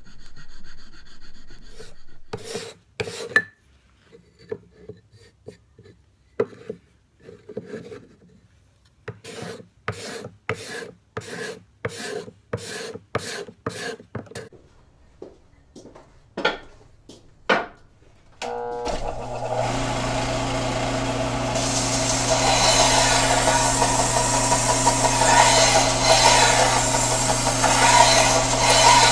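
Hand tools rasping on wood: strokes of a file on a piece clamped in a vise, then an even run of hand-plane strokes on a small block, about two a second. About 19 seconds in, an electric bench belt sander switches on and runs with a steady hum as a wooden piece is held against its belt.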